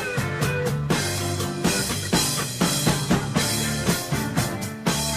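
Background rock music with drum kit, bass drum and guitar, a steady beat.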